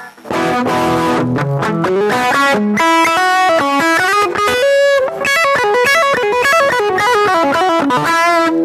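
Electric guitar, a Fernandes Strat, played through a Caline C300 effects unit on its humbucker setting: a quick melodic line of single notes running without a break.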